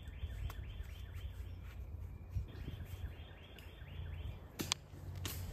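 Steady low outdoor rumble with a bird trilling in the background: a rapid run of short, falling high notes, repeated twice. Near the end come a few sharp clicks, fitting wire fence clips being put onto a hog panel.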